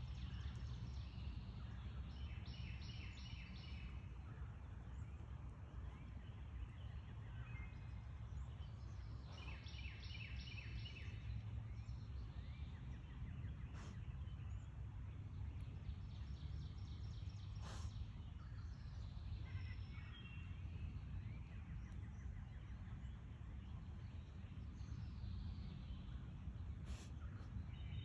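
Light rain beginning to fall on a creek, with a few single drops tapping sharply, over a steady low rumble. A songbird sings a short phrase of quick repeated notes every several seconds, about five times.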